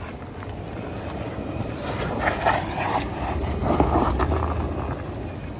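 Off-road truck engine running at low speed as it crawls the trail, its low rumble swelling about three seconds in, with short bursts of crunching about two and four seconds in.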